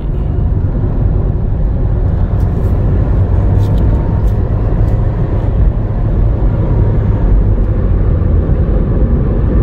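Steady low road rumble inside a car cruising on a motorway: tyre and engine noise with no change in speed.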